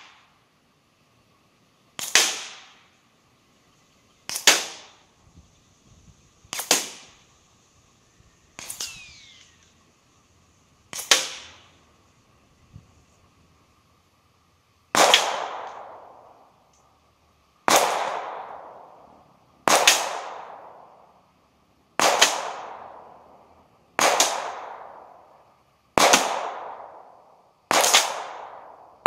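Ruger 22/45 .22 LR pistol firing unsuppressed, heard from about 100 yards away: twelve sharp shots about two seconds apart, each with a fading echo, and a pause of about four seconds after the fifth. A short falling whine follows the fourth shot.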